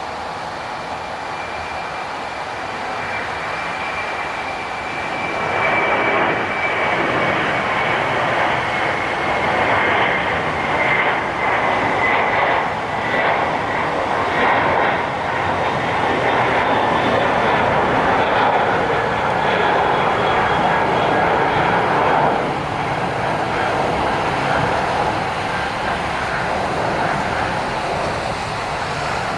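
Jet airliner's engines passing close by: a roar that builds about five seconds in, stays loud, and eases after about twenty-two seconds, with a high engine whine slowly falling in pitch.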